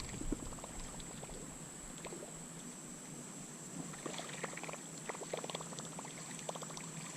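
Faint creek sounds: light water splashing and dribbling with scattered small ticks, denser in the second half, over a steady high-pitched insect drone.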